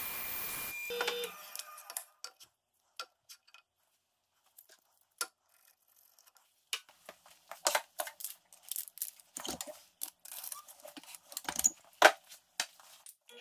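Bandsaw running for about the first second, then switched off and stopping. Scattered light clicks and knocks follow as a wooden block is handled and pencil-marked on the saw table, with one sharp knock near the end.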